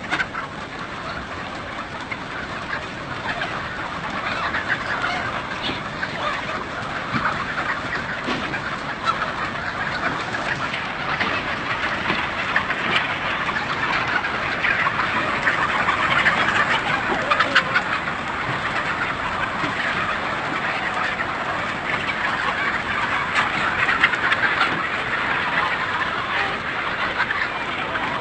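A large flock of chickens clucking all at once, many calls overlapping into a dense, continuous din that grows louder over the first few seconds.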